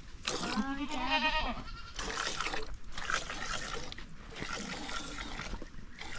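A single quavering bleat from a sheep or goat-like farm animal, about a second and a half long, near the start. Lower-level mixed noise follows it.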